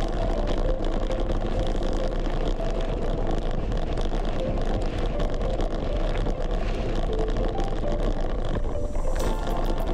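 Wind buffeting an unshielded action-camera microphone while riding a bicycle: a steady, loud rushing rumble with no wind suppression. Background music with a steady beat comes in near the end.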